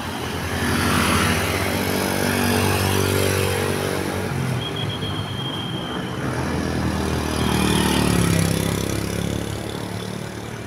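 Heavy road vehicles passing on a road, their engine sound swelling about a second in and again around eight seconds, with a short high steady tone near the middle.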